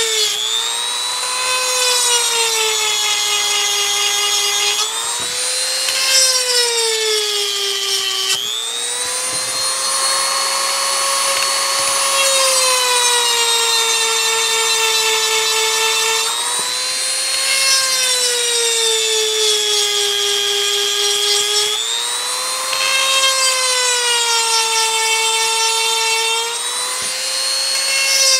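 EzzDoo cordless rotary tool whining at high speed as its diamond bit grinds chainsaw chain teeth. The pitch drops several times as the bit bears down on a tooth and climbs back each time it eases off.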